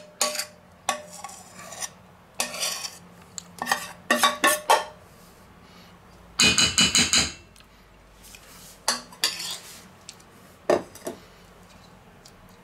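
A metal spoon scraping and clinking against stainless steel bowls as thick melted chocolate is scraped out, with a quick run of knocks about halfway through and two more late on.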